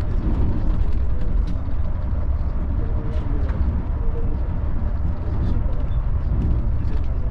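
Volvo B11R multi-axle bus on the move: a steady low rumble of engine and road noise, with a few faint light clicks and rattles.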